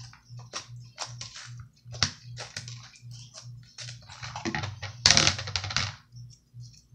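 Slime mixed with Kinetic Rock being squeezed and stretched by hand, making irregular crackling and popping, with the densest, loudest run of crackles about five seconds in.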